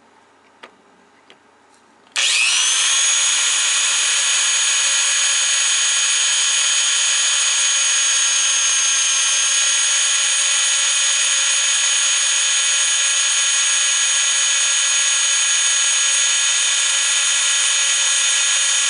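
After a few light clicks, a corded electric drill starts about two seconds in and runs steadily at one speed, its bit pressed into a steel plate. The bit is not getting through the steel, which the driller blames on a worn-out drill bit.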